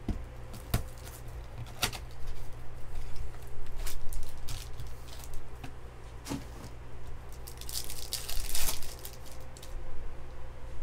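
Foil wrappers of Bowman Chrome baseball card packs crinkling and rustling as the packs are handled and torn open, with short clicks of cards and packs being set down. A longer tearing crackle of a wrapper comes about eight seconds in.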